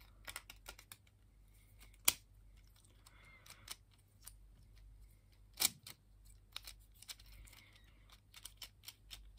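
3D-printed plastic puzzle pieces clicking and knocking against each other as they are handled and fitted together: scattered light clicks, with two sharper knocks about two seconds in and again a little past halfway.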